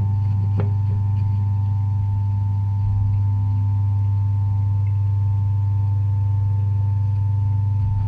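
A Fisher & Paykel Gentle Annie top-loading washing machine running, heard from inside its tub: a steady low motor hum with a few steady higher tones over it, and a single knock about half a second in.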